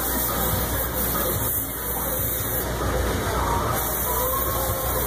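Electrostatic powder coating gun blowing a steady hiss of compressed air and powder as it sprays exhaust headers.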